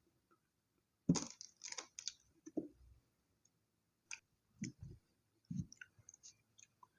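Close-miked chewing of chocolate toasted bread, with wet mouth clicks: a cluster of chews about a second in, then scattered shorter chews and small clicks.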